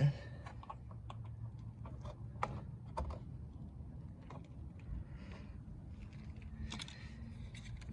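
Scattered light clicks and taps, irregular and a few per second, of plastic turn signal housings and their clips being handled and fitted to the bumper.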